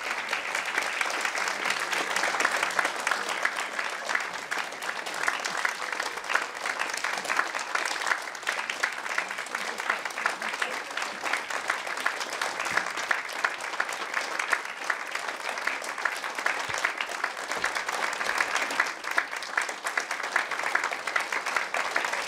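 Audience applauding: a dense, steady clapping of many hands that goes on without a break.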